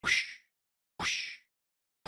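Cartoon whoosh sound effect played twice, about a second apart. Each is a short swish about half a second long that sweeps up from low to high, with dead silence between them.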